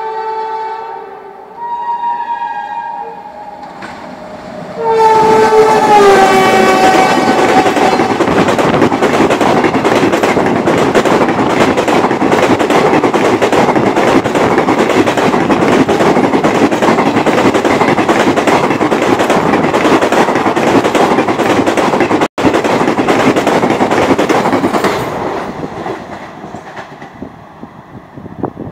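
WAP-7 electric locomotive sounding its two-tone horn in blasts as the train approaches. The horn's pitch drops as the locomotive passes, then the coaches rush by with loud steady wheel-on-rail noise for about twenty seconds before fading away.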